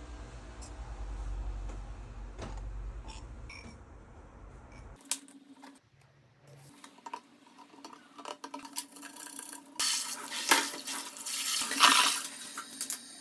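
Dishes and cutlery clinking with a low hum underneath at first, then a loud rush of water near the end.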